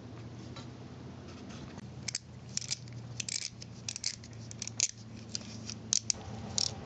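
Ratchet wrench clicking in short, uneven runs as it loosens the 8mm sensor bolt, starting about two seconds in.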